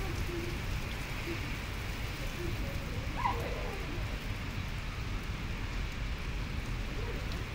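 Steady rain falling, a continuous hiss over a low rumble, with a brief faint chirp about three seconds in.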